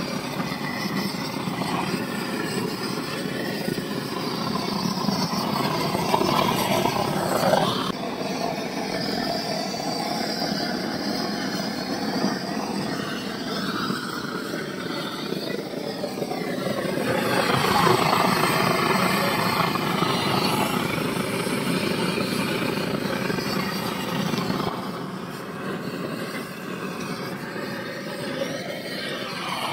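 Brass pressurised blowtorch burning with a steady roaring hiss as its flame is played over the skin of a plucked chicken to singe it. The whoosh wavers as the torch moves, swells a little past halfway and eases near the end.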